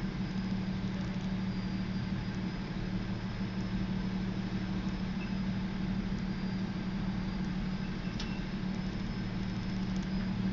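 Steady low idling hum of a vehicle engine, heard from inside a car's cabin, even throughout with no rhythmic clicks or bells.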